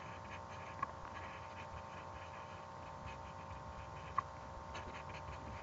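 Faint pen writing: light scratches and taps, with a small sharp click about a second in and another about four seconds in, over a steady electrical hum.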